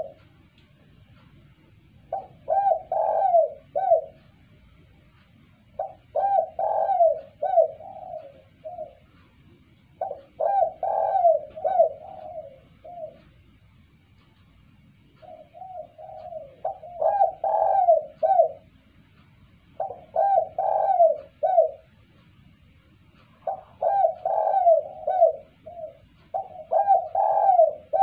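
Spotted dove cooing: its song phrase, a run of several rolling, curving coos, repeated about six times with a short pause between phrases.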